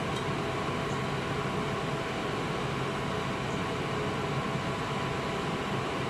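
Steady background machine hum and hiss with a few faint steady tones and no distinct knocks or taps.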